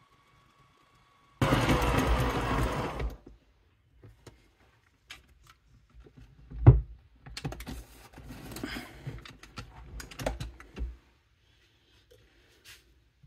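Stand mixer kneading bread dough with its dough hook, its motor falling in pitch as it winds down about three seconds in. Then a run of clicks and knocks, one loud knock near the middle, as the mixer's tilt head is raised out of the bowl.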